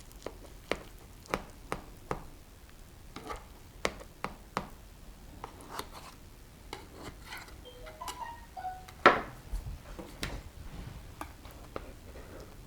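A utensil clicking and tapping against a dish over and over, sharp separate clicks every half second or so, with one louder knock about nine seconds in.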